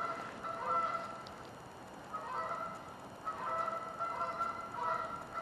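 Repeated honking bird calls, several overlapping, with a lull about a second in before they pick up again.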